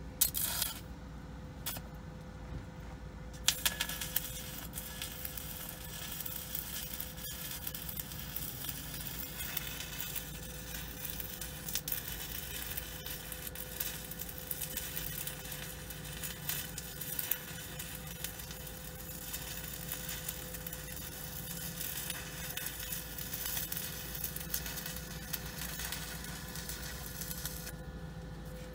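Stick-welding arc on the steel frame crossmember of an RV trailer. A few short strikes of the arc come in the first couple of seconds. Then the arc burns steadily for about 24 seconds while a bead is laid, and it cuts off shortly before the end.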